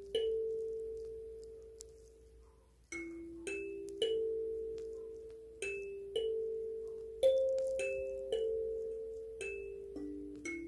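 Kalimba plucked slowly in a gentle lullaby melody, single notes ringing out and fading away one after another. After the first note it rings out alone for nearly three seconds before the tune goes on.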